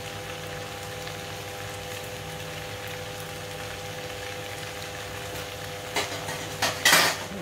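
Rice noodles for pad thai cooking in a frying pan on the stove, a faint sizzle over a steady hum. Near the end come two brief louder noises, the second the loudest.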